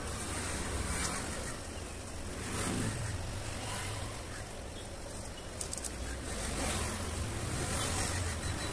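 Tissue and hands rubbing and rustling against a smartphone's glass screen while it is wiped clean, over a steady low hum.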